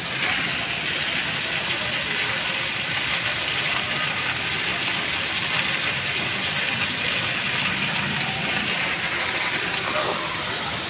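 Plaza water fountain, its jets splashing down into the shallow pool as a steady hiss of falling water. The hiss swells at the start and eases slightly near the end.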